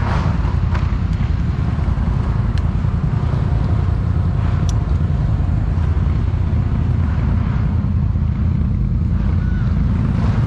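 ATV engine running steadily at low revs, an even low rumble with no revving. A few light sharp ticks in the first half.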